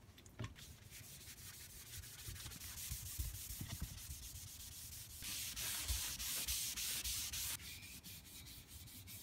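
A rag wet with mineral spirits being rubbed briskly over bare, stripped wood, a scratchy rubbing hiss that grows louder for a couple of seconds midway.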